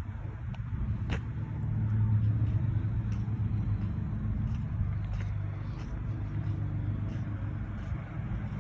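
Steady low rumble of an idling engine, with a few faint ticks over it.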